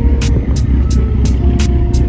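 Bass-heavy music with a steady hi-hat beat, about three to four ticks a second, over a deep booming bass line and held synth notes.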